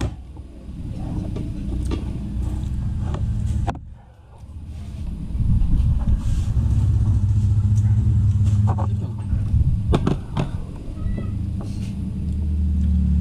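A steady low motor hum that fades briefly about four seconds in, with scattered clinks of plates and spoons on a table.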